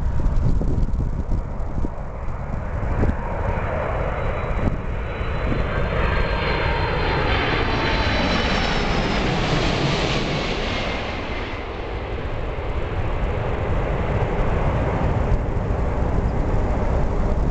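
Boeing 747 jet engines passing low overhead on final approach: the noise builds over several seconds, peaks about halfway through with a high whine sliding down in pitch as the airliner goes over, then dies away.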